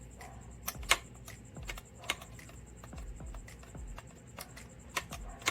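Light metallic clicks and taps as a clutch throwout bearing is worked back and forth by hand, irregularly spaced, the sharpest about a second in and a pair near the end.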